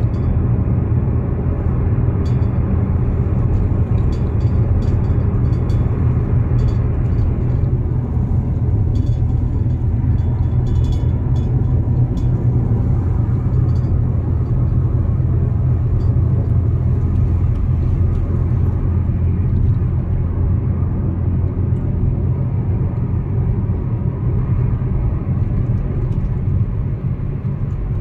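Car driving at highway speed, heard from inside the cabin: a steady low rumble of road and engine noise, with faint light ticks now and then in the first half.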